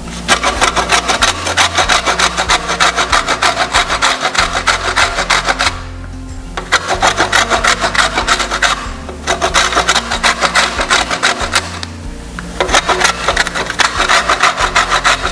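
Lemon rind being grated on a metal box grater: quick rasping strokes, several a second, in four runs broken by short pauses. Background music with low bass notes plays underneath.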